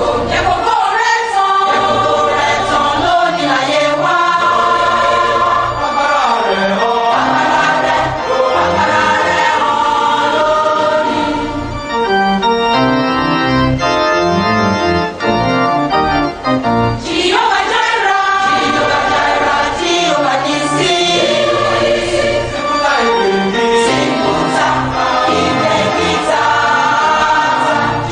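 Gospel choir singing with organ accompaniment.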